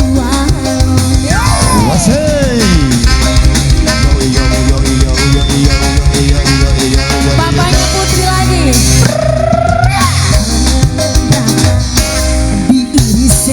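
Loud live dangdut band music: a steady drum and bass beat with a lead melody that bends and glides up and down in pitch over it.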